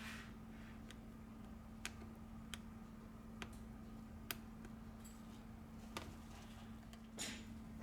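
About six light, sharp clicks from small repair tools and parts being handled during reassembly of an iPhone X, spread out over a steady low hum, with a short scrape about seven seconds in.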